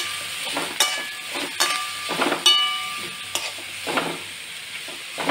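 Sliced onions sizzling in hot mustard oil in a metal kadai while a wooden spatula stirs them, with about half a dozen scraping strokes against the pan, a few followed by a brief ring from the pan. The onions are at the stage of being fried toward golden brown.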